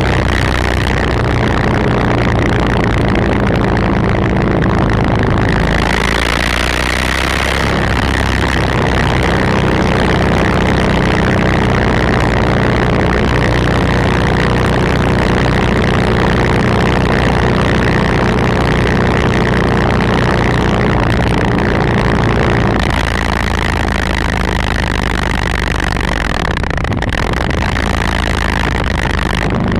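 Motorcycle engine running through its exhaust, mostly steady like an idle, with the note changing briefly about six seconds in and again a little past twenty seconds.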